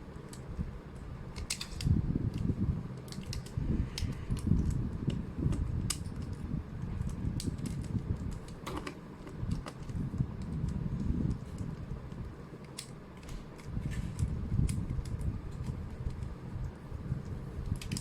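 Plastic 3x3 speedcube turned by hand: irregular clicks and clacks of the layers, over a low rumble of handling. The cube is built from pieces of two different-sized cubes, so it turns stiffly and catches on its pieces.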